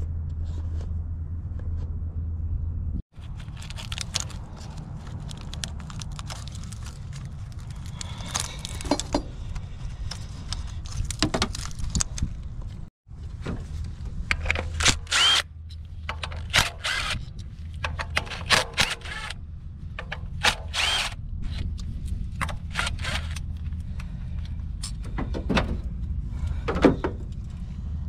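Cordless power driver with a socket extension running in short bursts on the coil-pack bolts of a Toyota RAV4's 2.0 L four-cylinder, with clicks and clatter of the socket and bolts between runs, mostly in the second half. A steady low rumble lies underneath.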